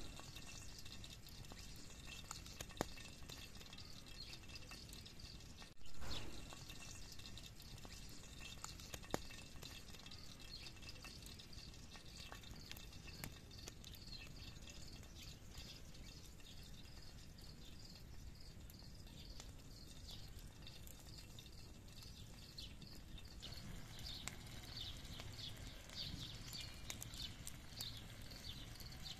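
Wood campfire burning, with a few sharp crackles and pops over a faint steady hiss, and a faint high chirping in the background that grows busier near the end.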